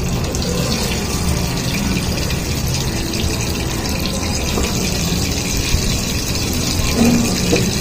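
Water running from a pipe into the inlet neck of a diesel car's intercooler, filling the core with a steady rushing and gurgling. The intercooler is being filled with water and detergent to soak the oil and particles out of it.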